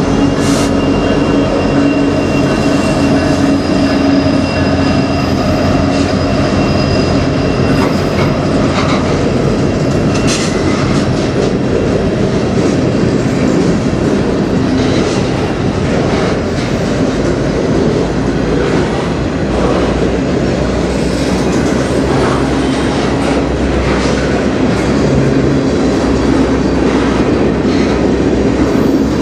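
CN freight train passing close by. A diesel locomotive hums past at the start, then a long string of freight cars rolls by with a steady heavy rumble and scattered wheel clicks over the rail joints. Thin high wheel squeal sounds through roughly the first ten seconds.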